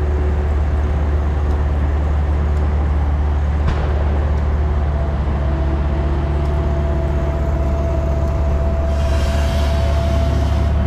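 Steam-engine-powered sawmill running: a steady low rumble with a humming tone that rises a little in pitch partway through. About nine seconds in, a hissing rasp joins it and lasts to the end.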